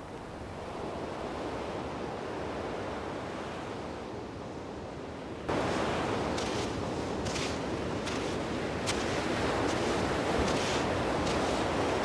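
Waves washing on a shore, a steady surf hiss. About five seconds in it cuts to louder wind noise on the microphone, with irregular crunching steps on sand.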